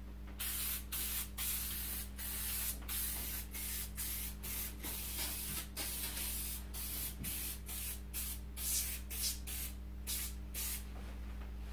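Aerosol can of foam cleaner spraying in a rapid series of short hisses, with brief gaps between them, as foam is laid along a wooden gun stock.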